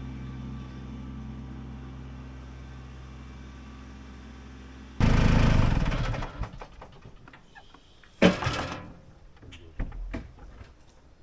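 An engine idling steadily. About halfway through it gives way abruptly to a loud rushing clatter, then a sharp slam like a vehicle door, followed by scattered clicks and knocks.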